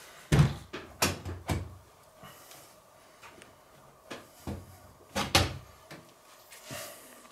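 Several separate knocks and clunks of a PC case and its parts being handled as the computer is taken apart, the loudest a little after the start and about five seconds in.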